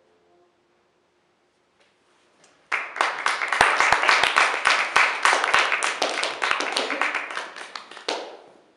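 The last held notes of cello and piano die away, and after about two seconds of silence an audience bursts into applause, which thins out near the end.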